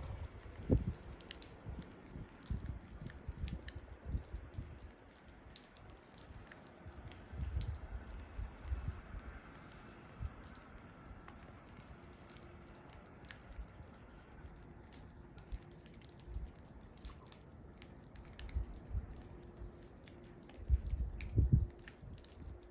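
Wind gusting across the microphone in irregular low rumbles, strongest about 21 seconds in, with faint scattered ticks.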